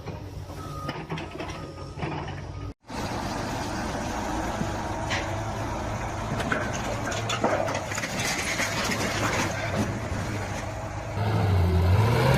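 A heavy vehicle's engine running amid outdoor noise, with a sudden break in the sound about three seconds in. Near the end the engine note gets louder and rises.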